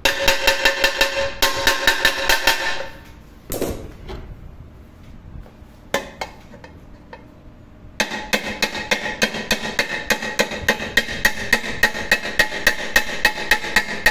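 Small hammer tapping rapidly on rivets to set them, fixing a handle bracket to an old Marmicoc pressure cooker against a rivet set held on the other side, and the pot body rings with each blow. A fast run of blows over the first three seconds and a couple of single knocks are followed by a steady run of several blows a second from about eight seconds on.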